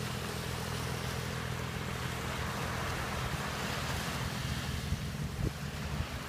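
A distant engine drones steadily across the water, mixed with the wash of waves and wind buffeting the microphone, with one stronger gust about five and a half seconds in.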